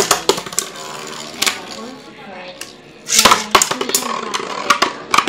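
Two metal-wheeled Beyblade spinning tops, Storm Pegasus and Flame Sagittario, spinning in a plastic basin and clacking against each other and the basin wall in sharp, irregular clicks, with a loud click at the start and a rapid run of clashes about three seconds in.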